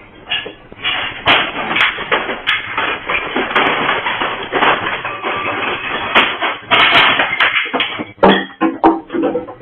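Continuous rattling, clattering and banging of objects shaken by strong earthquake ground motion, with a few loud knocks near the end.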